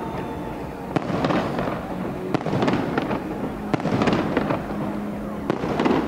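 Fireworks salute: four shells burst with loud bangs about a second and a half apart, over continuous crackling.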